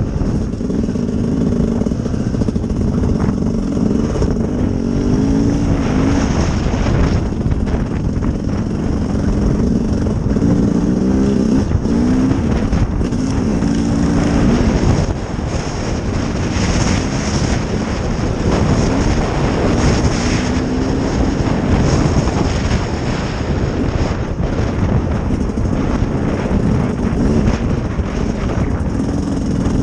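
Sherco SE-R 300 two-stroke enduro motorcycle engine running under way, its revs rising and falling again and again with throttle and gear changes.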